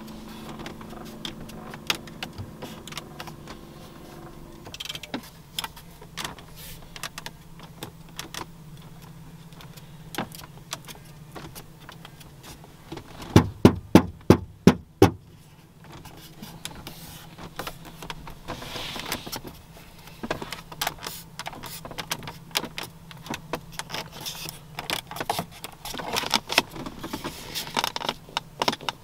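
Hands pressing, poking and tapping the interior trim of a 2004 Cadillac XLR, giving many small clicks, creaks and squeaks of plastic panels and leather. About halfway through comes a quick run of about six loud knocks on a panel. A steady low hum runs underneath.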